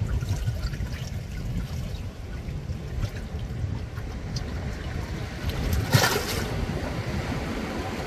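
Small waves lapping and splashing against a rocky seashore, water sloshing and trickling over the rock under a steady low rumble. One louder splash comes about six seconds in.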